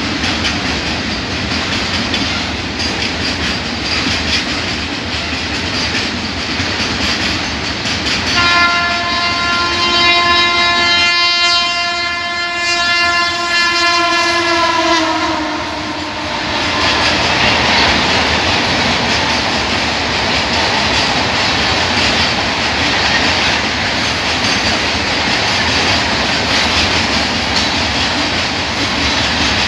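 Freight train tank wagons rolling past with steady wheel clatter over the rail joints. About a third of the way in, a locomotive air horn sounds one long blast of roughly seven seconds, its pitch sagging just before it stops.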